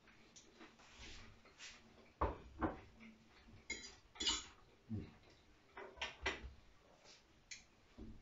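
A metal fork clinking and scraping on a ceramic salad plate, then the plate set down on a wooden cutting board: a scattered series of quiet short clinks and knocks.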